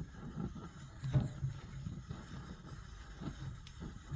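Swiss army petrol stove's burner running with a low, uneven rumble and a sharp knock about a second in; one of its two jets is blocked.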